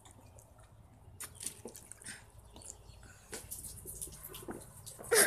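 Water being gulped quickly from plastic water bottles: soft swallowing and sloshing with scattered small clicks and drips. A louder sound starts right at the end.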